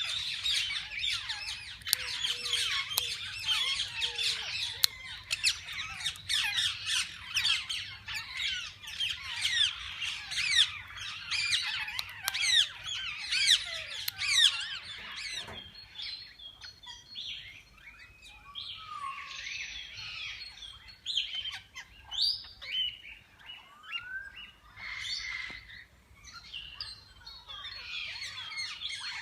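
A flock of parakeets in an aviary chattering and chirping, many calls overlapping in a dense chorus that thins to scattered separate calls about halfway through.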